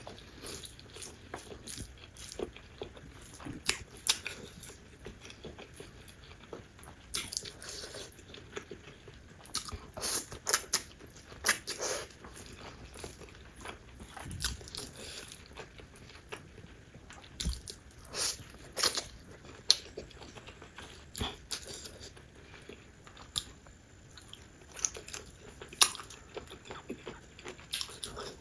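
Close-miked eating sounds: chewing and biting into noodles and other food, with irregular wet smacks and crisp clicks from the mouth.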